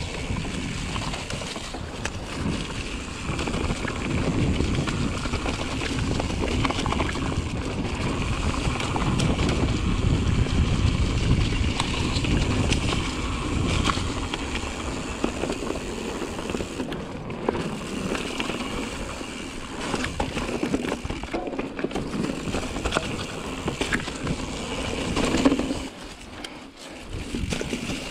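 Pivot Mach 5.5 full-suspension mountain bike riding a dirt singletrack: tyres rolling over earth and dry leaves, with small knocks from the bike and wind rushing over the camera microphone. The noise is louder through the middle stretch and dips briefly near the end.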